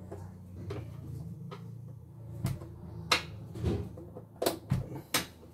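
Sharp plastic clicks and knocks from the casing of a CNY E900 embroidery machine being worked loose and lifted, a handful of them mostly in the second half, over a steady low hum.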